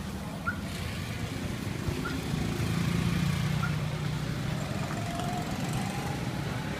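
Street traffic with a motor vehicle engine running close by, growing louder a few seconds in and then easing. Three short, faint high chirps sound over it in the first four seconds.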